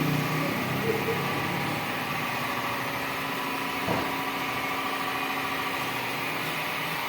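An engine idling with a steady hum and a single short knock about four seconds in.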